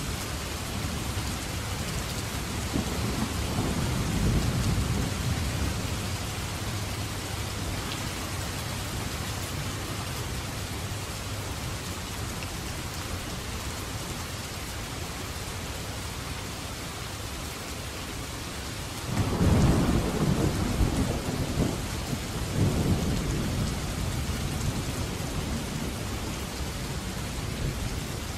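Heavy downpour of rain falling steadily, with a low roll of thunder a few seconds in and a sudden, louder thunderclap about two-thirds of the way through that rumbles on for several seconds.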